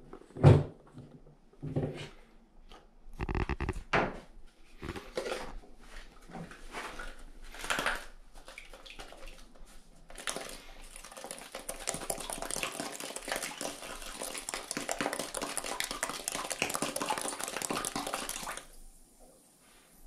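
A series of knocks and clatters as plastic bottle and tubing are handled. Then, about ten seconds in, a steady, dense fizzing and bubbling starts as carbon dioxide from dry ice streams through an aquarium air stone in bath water. It cuts off suddenly near the end.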